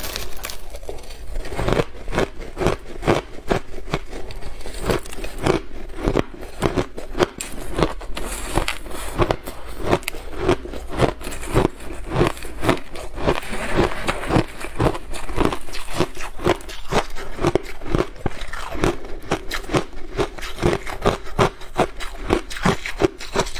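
Soft shaved ice being bitten and chewed, a fast, steady run of crisp crunches and crackles.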